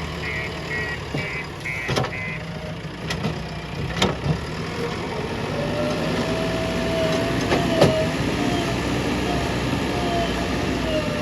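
JCB 3DX backhoe loader's diesel engine running steadily under work. A pulsed beeping alarm runs for the first couple of seconds, sharp knocks come at about 2, 4 and 8 seconds, and a wavering whine sets in from about the middle on.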